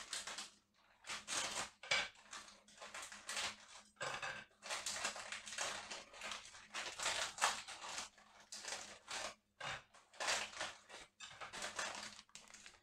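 Plastic biscuit packet crinkling and rustling in short, irregular crackles as biscuits are taken out, with light taps as they are laid in a glass bowl.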